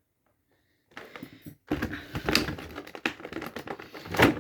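Hard plastic action-figure packaging being handled and worked at: a run of irregular clicks and crackles, starting about a second in, with one loud sharp click near the end.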